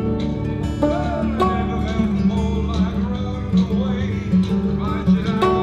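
Country-style music with plucked acoustic guitar over a steady bass line.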